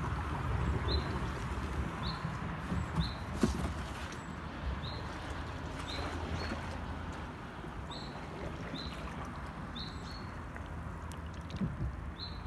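Soft water sounds of a kayak gliding through still floodwater among trees, over a steady low rumble. A small bird repeats a short, high call about once a second, and a single sharp click comes about three and a half seconds in.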